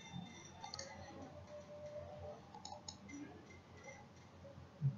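A few faint computer mouse clicks over low, steady room noise.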